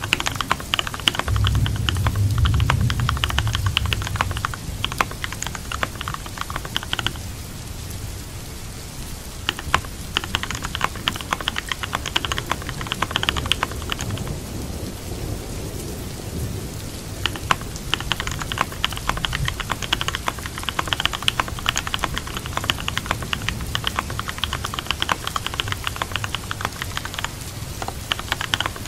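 Computer keyboard typing in bursts of quick clicks, broken by two pauses of a few seconds, over steady rain. A low rumble sounds a couple of seconds in.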